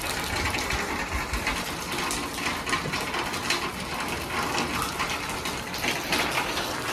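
Rain falling steadily: a dense patter of drops with running water.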